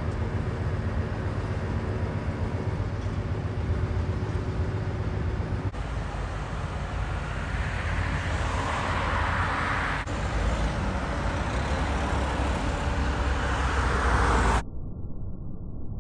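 Heavy diesel engines running with a steady low rumble. The sound is cut between clips, with a hiss swelling in the middle and again later. About a second before the end it changes abruptly to a duller, muffled recording.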